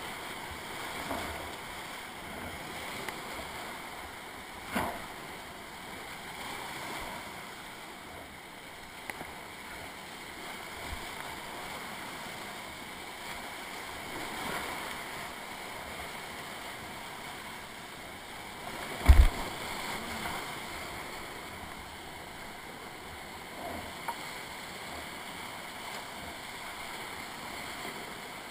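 Whitewater rapids rushing steadily around a kayak as it runs a steep, flooded mountain river, with occasional paddle splashes. A single sharp thump, the loudest sound, comes about two-thirds of the way through.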